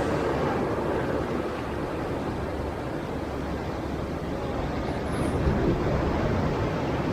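Sea waves surging against a rocky shore: a continuous rush of surf that eases through the middle and swells again toward the end.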